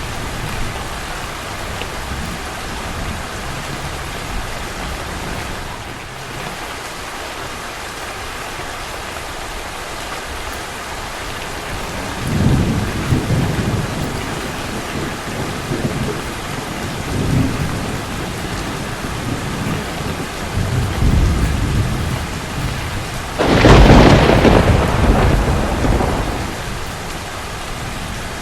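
Steady rain falling, with low rolls of thunder from about halfway through. Near the end a loud thunderclap breaks and rumbles away over a couple of seconds.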